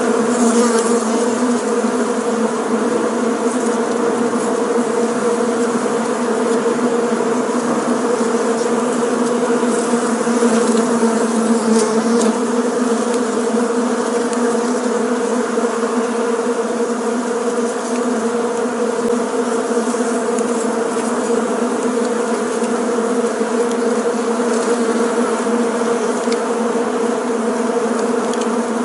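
Bees buzzing: a steady, dense drone of many wings holding one low pitch without let-up.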